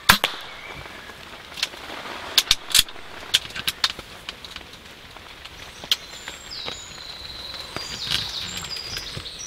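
A single shot from a moderated .22 Theoben Rapid air rifle makes a sharp crack right at the start. A scattering of lighter ticks and knocks follows over the next few seconds, and birds chirp near the end.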